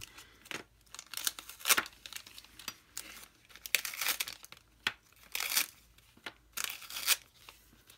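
Plastic sleeves of watercolor brush packets crinkling and tape tearing as the packets are peeled off a strip of tape, in short irregular bursts.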